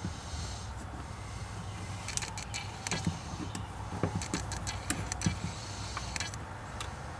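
A Phillips screwdriver and fingers working the line-roller screw and small washers on the bail arm of a PENN Fierce II spinning reel: light, irregular metal and plastic clicks and ticks, mostly after the first couple of seconds, over a low steady hum.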